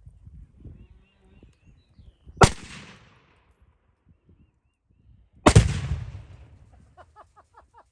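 Two sharp blasts about three seconds apart from shooting at a Tannerite charge set on a dirt bike; the second has a longer rumbling tail as it fades.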